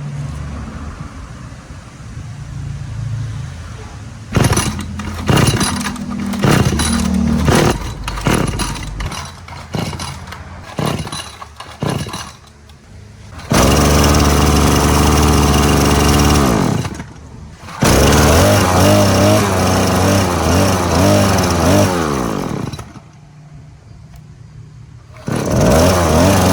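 Small petrol engine of the kind used in a lawn mower, firing in a string of short bursts, then running steadily with its speed rising and falling. It cuts out briefly, runs again, stops for about two seconds and starts once more near the end.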